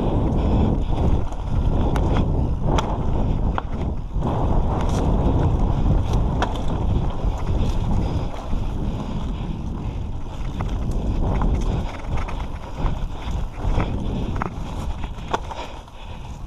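Wind buffeting the camera's microphone over the rumble of mountain bike tyres rolling down a dirt trail, with scattered clicks and knocks from the bike.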